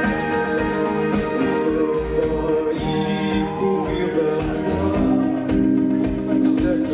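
Live band music: several singers singing together over electric guitar, keyboards and drums, with the drum beat coming through more strongly about five seconds in.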